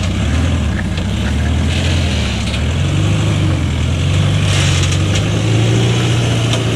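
Volkswagen Amarok pickup's engine running at low revs under load as the truck crawls up a steep steel ramp, a steady low drone.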